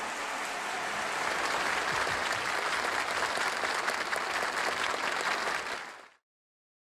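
Audience applauding, a dense steady clatter of many hands that cuts off abruptly about six seconds in.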